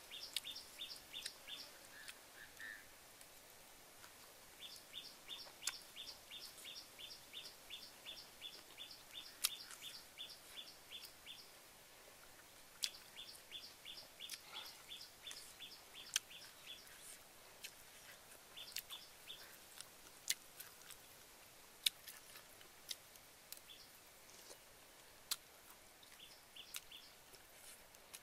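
Bird calling in long runs of quick, evenly repeated two-note chirps, about three a second, in several bouts with pauses between. Scattered sharp clicks from eating stand out above it.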